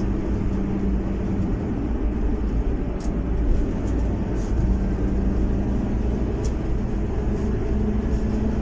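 Car driving at highway speed, heard from inside: a steady low rumble of engine and tyre noise.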